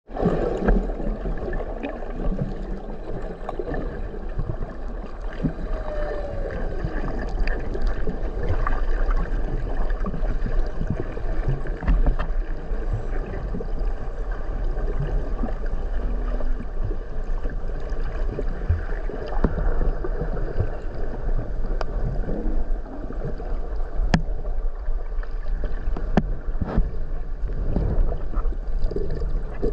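Underwater water noise: steady gurgling and rushing of water over the camera, with scattered sharp clicks.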